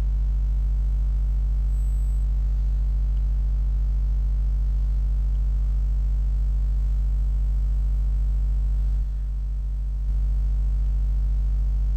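Steady electrical mains hum, a low buzz with nothing else over it; it dips slightly about nine seconds in and comes back a second later.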